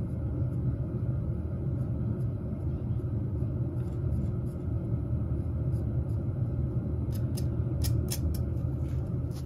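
A steady low rumble, with a few sharp clicks about seven to eight seconds in as a pencil tip picks at a sand casting mold.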